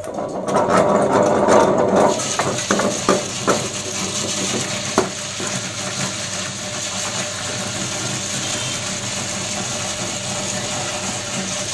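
Tabletop wet grinder running, its stone rollers turning in the steel drum and grinding soaked idli rice, the first stage of adai batter before the dals go in. Louder and rougher for the first two seconds, then settles into a steady hum with a few scattered clicks.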